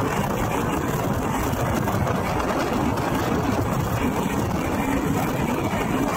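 Steady rumble and rail noise of a passenger train running along the track at speed, heard from on board a coach.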